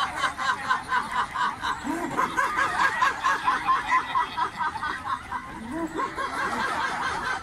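A laughter yoga group of many men and women laughing together on purpose, in quick rhythmic 'ha-ha' pulses that keep going without a break.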